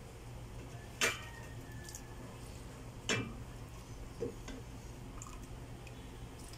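A wooden spoon knocking three times against cookware, a stainless steel pot and a glass dish, while serving soup; the first knock is the loudest. A steady low hum runs underneath.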